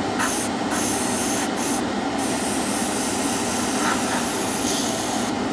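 Gravity-feed airbrush spraying the last of the lacquer paint in its colour cup: a steady hiss of air that breaks off briefly a few times in the first two seconds as the trigger is let go, then runs on unbroken. A spray booth extractor fan runs steadily underneath.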